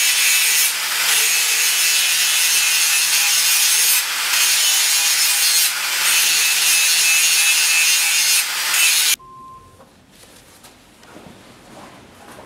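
Angle grinder grinding a pattern-welded (damascus) steel blade: a loud, steady grinding with a faint steady hum and a few brief dips. It cuts off abruptly about nine seconds in, leaving a quiet background.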